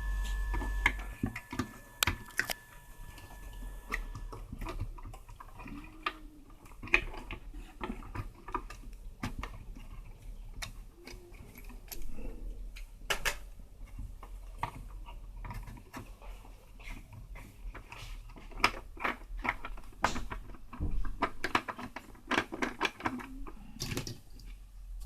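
Hands handling and reassembling a portable radio cassette recorder: a long run of irregular sharp clicks and knocks of plastic parts, with a low hum underneath.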